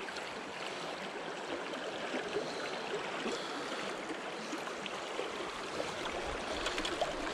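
Shallow creek water running steadily over rocks and around the feet of someone standing in it.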